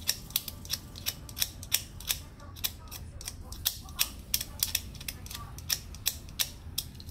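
Ratcheting screwdriver clicking in an even rhythm, about three clicks a second, as it turns a battery terminal screw in a UPS battery pack.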